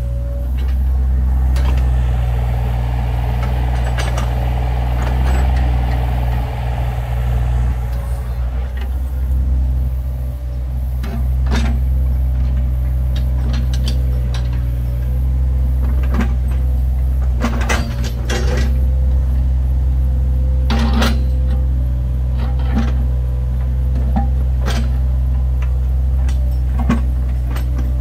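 Compact diesel earthmoving machine running steadily with a strong low engine hum. A brighter rushing sound runs over about the first eight seconds. Sharp knocks and clanks come at irregular intervals every second or few seconds.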